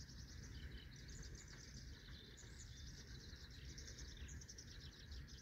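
Faint outdoor summer ambience: rapid high chirping, repeated several times a second, over a low steady rumble.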